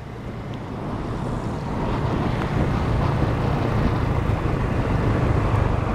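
Motorbike engine running with wind rushing over the microphone, heard from on board the moving bike; it grows louder over the first two to three seconds, then holds steady.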